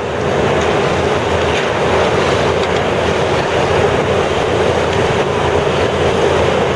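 Steady loud rushing of the wind fans that blow the sailing dinghy across the indoor pool, with a low machine hum beneath.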